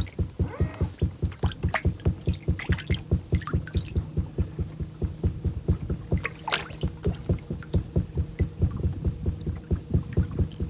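A steady low mechanical throbbing, about five pulses a second, over a constant hum, with a few sharp clicks, the loudest about six and a half seconds in.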